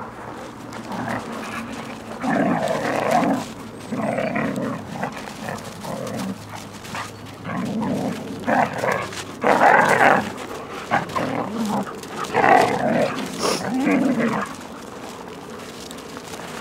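Two Siberian huskies play-fighting, giving a series of short, irregular vocal bursts, the loudest about two-thirds of the way through.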